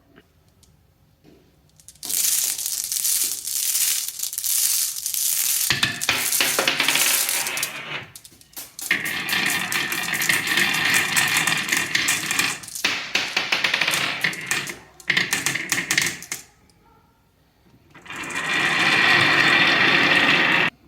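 Many glass marbles rolling and clattering down a HABA wooden marble run, a dense rattle starting about two seconds in. It breaks off briefly twice and comes back as a more even, ringing rattle near the end.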